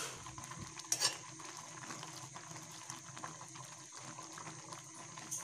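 Chopped leafy greens boiling hard in a pot of water on a gas burner at full flame: a steady bubbling hiss, with one light click about a second in.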